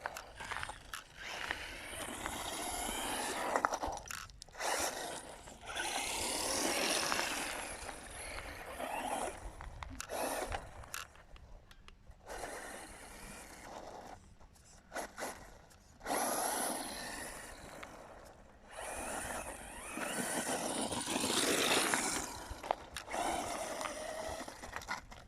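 Electric Quanum Vandal RC buggy driven in repeated bursts over loose dirt. The motor whine rises and falls with the throttle over the noise of the tyres on the ground, with short lulls between runs.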